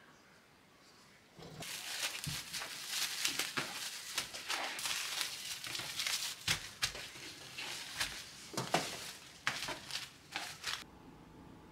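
Plastic cling film crinkling and crackling as hands wrap portions of cooked rice into flat packets. It starts about a second and a half in and stops about a second before the end.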